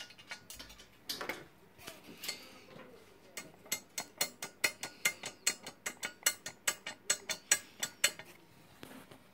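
Small metallic clicks as the dropout's alignment adjuster bolt is worked with a hex key: a few scattered ones, then a quick, even run of sharp clicks, about four or five a second, that stops near the end.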